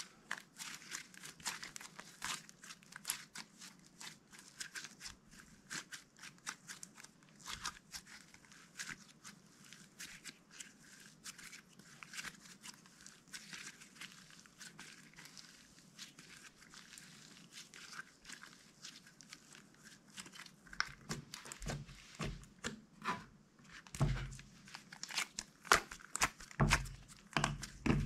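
Slime being squeezed and kneaded by hand: a continuous run of small clicks and pops, with heavier, deeper squelches in the last several seconds.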